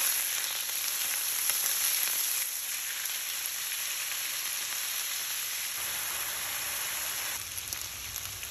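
Marinated beef bulgogi (thinly sliced ribeye with onions and carrots) sizzling loudly in a hot nonstick skillet as it is turned with tongs. The steady frying hiss eases a little a couple of times as the marinade cooks down.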